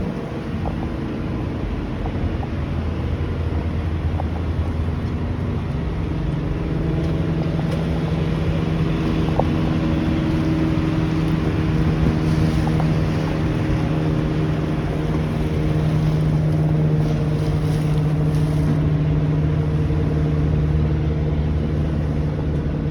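Water taxi's engine running steadily underway, a constant drone with a hum of steady tones, heard aboard with the rush of wind and water.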